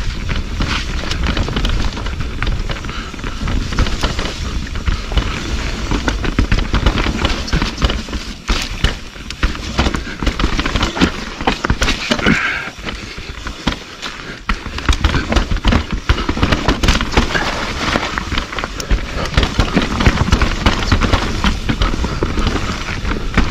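Mountain bike descending a rough, muddy trail: a continuous clatter of tyres over rocks and roots with the bike rattling, over a steady rumble of wind on the microphone.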